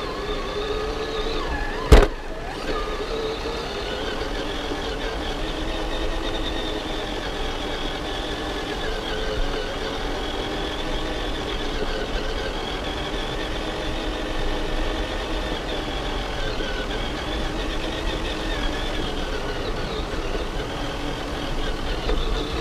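Traxxas TRX-4 Sport RC crawler's electric motor and gearbox whining as it drives, the pitch drifting up and down with throttle. One sharp knock about two seconds in.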